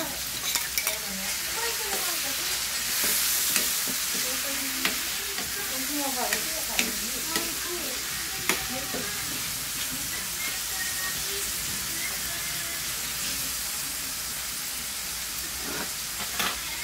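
Pork pieces frying in oil in a pan, sizzling steadily as chopped tomatoes are tipped in and stirred with a spatula. The spatula clicks and scrapes against the pan, and the sizzle swells briefly a few seconds in.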